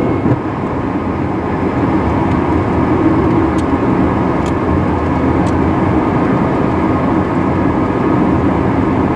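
Steady cockpit noise of a Hawker 850XP business jet in descent: the rush of air over the cockpit with the drone of its twin turbofan engines beneath, holding even throughout.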